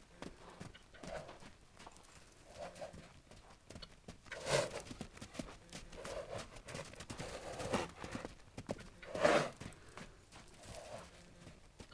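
Young horse cantering loose on sand: soft, rhythmic hoofbeats, with two louder bursts about four and a half and nine seconds in.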